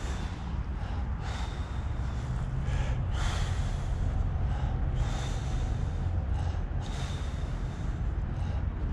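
Ottobock B500 electric wheelchair driving along a tarmac path: a steady low hum and rumble from the drive motors and tyres, with short rushes of noise about every two seconds.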